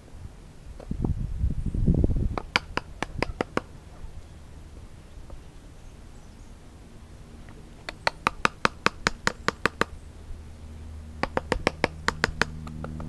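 Hammer tapping small timber dividers into slots cut inside a hollowed larch trunk nest box: three runs of quick, sharp taps, about six a second. A short rough scraping of wood comes about a second in.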